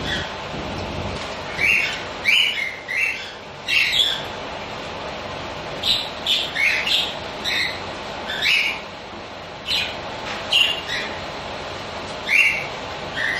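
Budgerigars calling: short, sharp chirps and squawks in quick irregular bursts, over a steady background noise.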